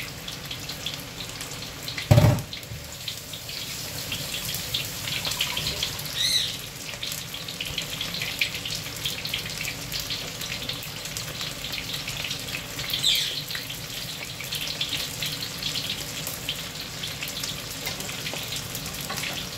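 Flour-coated pork ribs deep-frying in hot oil in a wok, a steady crackling sizzle. A single thump sounds about two seconds in.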